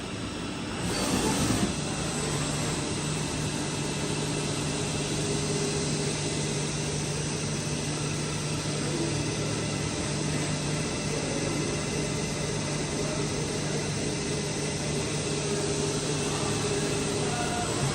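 Hurco VMX42i CNC vertical machining centre running: a steady low hum over an even hiss, with a brief louder swell at the start as it comes up to speed.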